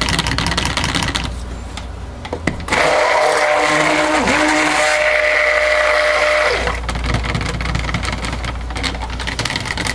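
Cuisinart Smart Stick immersion blender running in soap batter in a plastic pitcher, mixing colourant into the raw soap. It is loudest, with a steady whine, from about three to six and a half seconds in.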